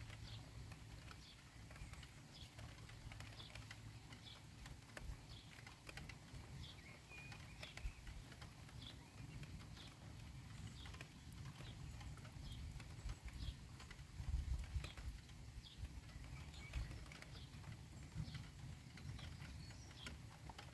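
Faint outdoor storm ambience: a low rumble that swells briefly about two-thirds of the way through, with light high ticks scattered irregularly throughout.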